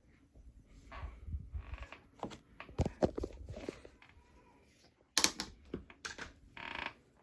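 Hands handling and opening packaging: a series of clicks, knocks and rustles, with the sharpest clicks about five seconds in.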